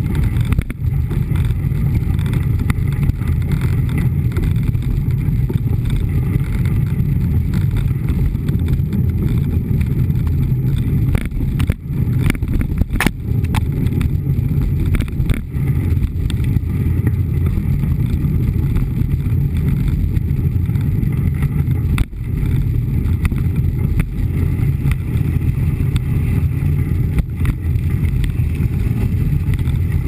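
Mountain bike rolling on a gravel road, heard through a camera mounted by the front wheel: a steady low rumble of tyre noise and wind on the microphone, with a few sharp knocks from bumps along the way.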